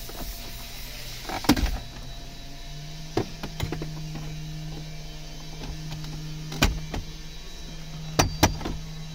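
Plastic retaining clips of a 2014 Chevrolet Traverse's center-stack dashboard trim panel clicking and snapping loose as the panel is pulled free: several separate sharp snaps. A steady low hum comes in about three seconds in.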